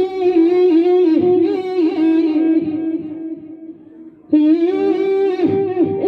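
Melodic instrumental interlude between sung lines of the lament, a wavering line held around one pitch. It fades away about three seconds in, then after a short pause starts up again.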